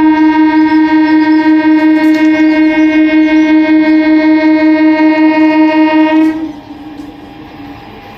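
Katwa–Sealdah EMU local train's horn blown in one long, loud, steady blast of about six seconds, a single tone with a slight rapid flutter. It stops sharply and trails off briefly, leaving quieter train noise.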